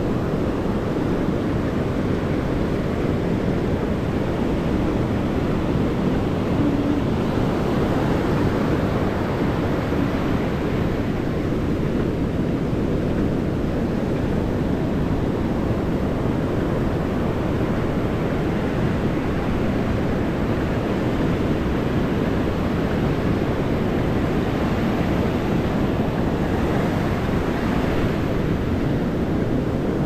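Ocean surf washing up the beach, swelling twice, once about a third of the way in and again near the end, with a steady low rumble of wind on the microphone.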